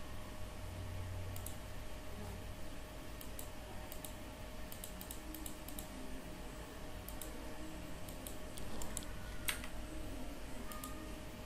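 Computer mouse and keyboard clicks, scattered and coming in small clusters, with one sharper click about nine and a half seconds in, over a faint steady hum.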